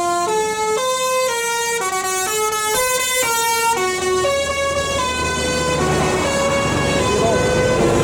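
Bus telolet horn, a multi-tone musical air horn, playing a tune: quick stepped notes up and down, then slower, longer held notes from about four seconds in.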